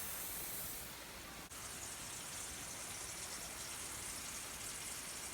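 A steady hiss, strongest in the high range, broken by a brief sharp drop about a second and a half in.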